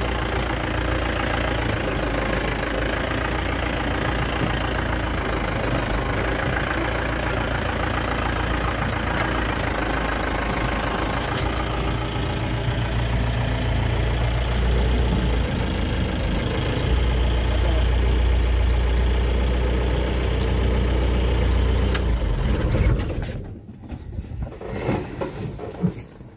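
Vehicle engine idling steadily with a constant low hum, until it stops near the end.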